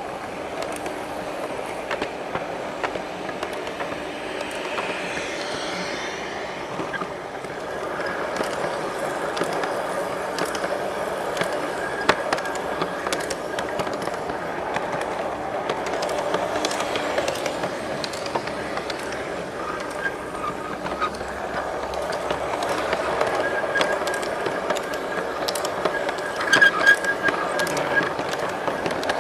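G-scale model train running on its track: a steady rolling rumble of metal wheels and gear drive, with irregular clicks over the rail joints and a thin high whine that comes and goes. A few louder clacks come near the end.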